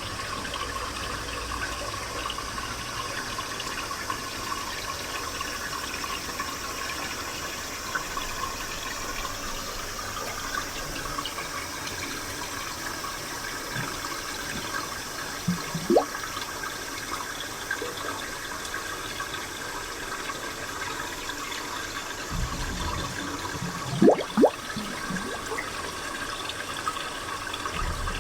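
Spring water flowing and trickling steadily, with a few louder bubbling plops of rising pitch: one about halfway through and two in quick succession near the end.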